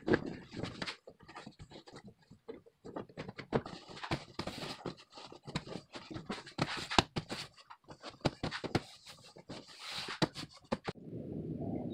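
Seat cover being pulled and tucked around a car seat's bottom cushion: a run of irregular rustles, scrapes and scratches of the cover material against the seat.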